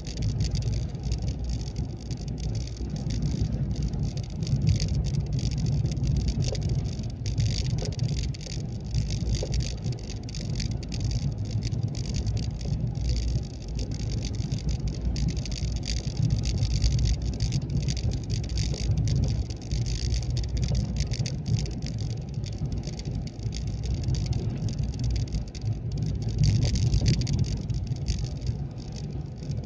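Road vehicle driving down a winding mountain road: a steady low rumble of engine and tyres with a constant hiss over it.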